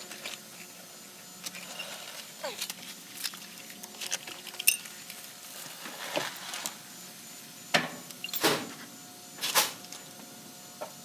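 Irregular clinks and knocks, a handful of short sharp strikes spread out over a low steady background.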